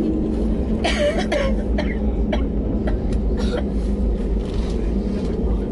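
Steady low rumble of the cabin of an Airbus A320neo airliner. About a second in, someone coughs briefly, and a few short clicks follow.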